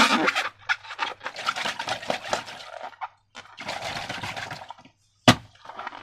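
Sticky slime squelching and crackling as it is squeezed and worked by hand, in three stretches of wet crackle, with one sharp click near the end.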